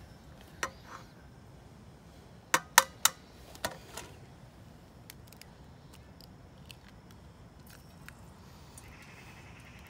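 Sharp taps and clicks as an egg is handled and cracked over a frying pan on a camping gas stove: three loud taps in quick succession about two and a half seconds in, then scattered faint ticks. A soft hiss comes in near the end.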